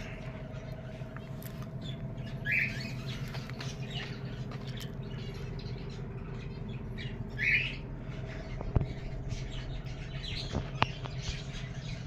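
Aviary birds chirping, with two short loud squawks about five seconds apart, over a steady low hum.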